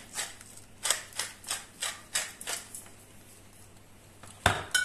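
Wooden pepper mill being twisted, grinding pepper in a quick run of rasping clicks, about three a second, that stops nearly three seconds in. Near the end there is a single sharp knock.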